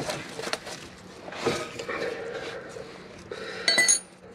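Socket wrench working the bolts of a rusty rear brake caliper: scattered metal-on-metal clicks, knocks and scraping. Near the end comes a short, bright, ringing metal clink, the loudest sound.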